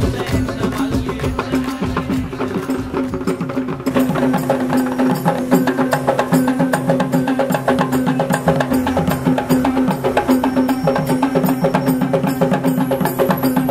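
Sri Lankan traditional drums beaten in fast, sharp strokes, with a steady held note underneath. The drumming turns denser and busier about four seconds in.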